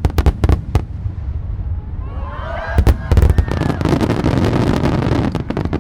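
Aerial fireworks: a rapid string of sharp bangs in the first second, then loud booms about three seconds in followed by dense crackling from the bursting shells.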